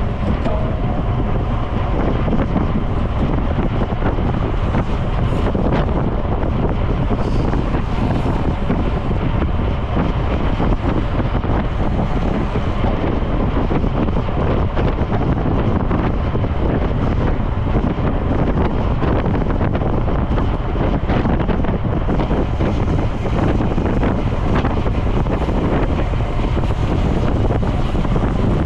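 Steady, loud wind noise buffeting the microphone of a camera riding on a road bike at speed.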